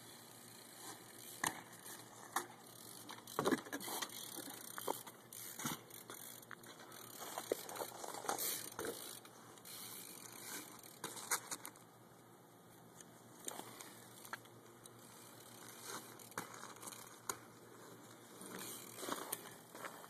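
Faint, irregular clicks and rattles of a BMX bike being ridden and hopped on asphalt, with a few sharper knocks scattered through.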